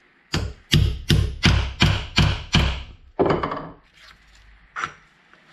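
Ball-peen hammer tapping a nut insert home into a motorcycle brake caliper held in a bench vise: seven quick strikes, about three a second, followed by a duller knock and a small click.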